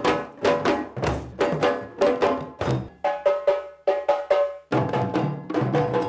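A group of djembe drums played by hand together in a quick, steady rhythm, each strike ringing briefly off the drum skins.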